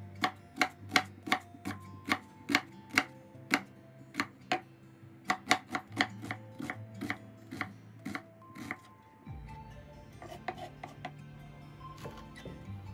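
Chef's knife mincing onion on a wooden cutting board: quick, sharp knife strikes, about three to four a second. About nine seconds in the strikes become fewer and softer.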